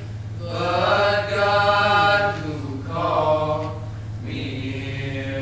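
Group of young male voices singing a hymn a cappella in harmony, in about three phrases of long held notes.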